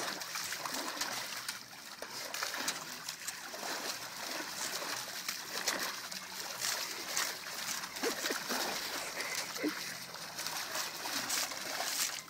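Rottweiler pawing at water in a shallow metal tub: repeated irregular splashes and sloshing as its front legs strike the water.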